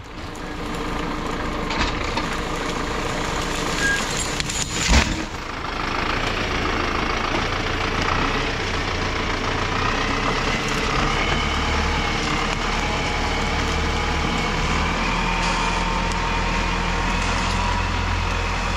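Zetor Proxima tractor's diesel engine running steadily, its low rumble growing stronger past the halfway point. A single sharp knock sounds about five seconds in.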